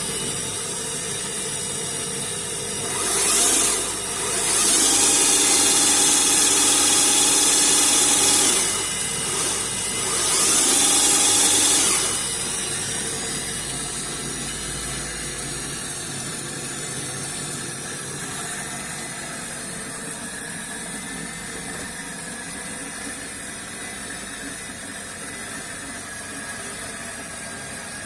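Homemade lathe-milling machine running steadily, with three loud, hissing stretches in the first half: a short one, a longer one of about four seconds, and a shorter one. A low hum stops about halfway through.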